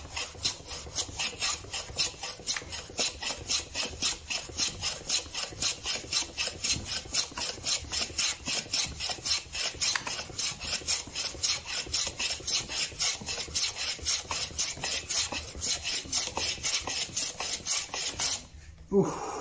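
Hand plane pushed on its side along a shooting board, shaving the edge of a hardwood panel to square it. It makes quick repeated cutting strokes, about three a second, each a short scrape of the blade through the wood. The strokes stop shortly before the end.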